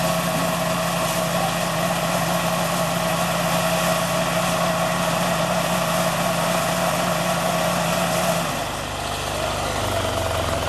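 GANGYI GY4L-0.6 mini combine harvester running with a steady engine hum. About eight seconds in, the note drops lower as the machine slows.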